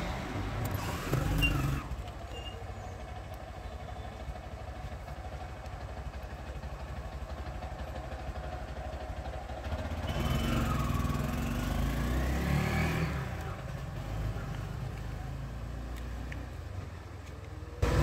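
Steady low rumble of motor traffic, with a vehicle engine accelerating past about ten seconds in, its pitch rising; a few small clicks of plastic parts being handled.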